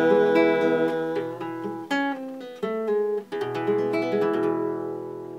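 Acoustic guitar strumming the closing chords of a song: a few chord changes, then a last chord left to ring and fade away.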